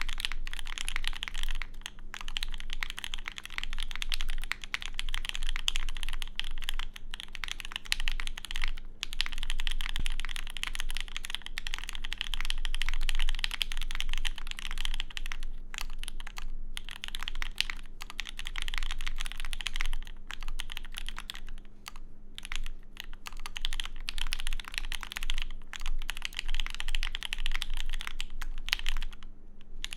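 Fast, continuous typing on a Duck Orion v3 mechanical keyboard with lubed H1 switches on a polycarbonate plate, its case lined with T-shirt fabric: a dense run of keystrokes with a few short pauses, one near the end.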